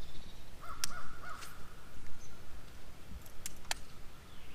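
A bird calling once, a held call about a second long, with a few sharp clicks around it.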